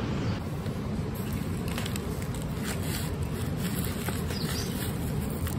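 A steady low rumble of outdoor background noise, with a few light clicks and scrapes as garlic bulbs are handled and their roots trimmed, and a short bird chirp about four and a half seconds in.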